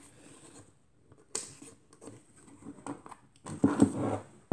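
Handling noise of a KW Etui folding plate camera: a sharp click about a second and a half in, small clicks, then a louder patch of rustling and knocks near the end as its folding ground-glass focusing hood is worked open.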